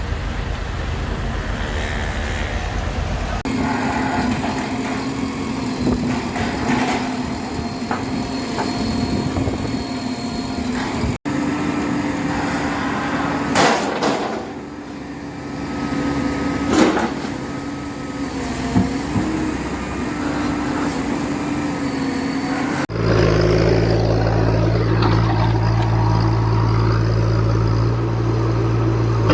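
Heavy construction machines' engines running steadily, in several separate clips with abrupt cuts between them about three and a half, eleven and twenty-three seconds in.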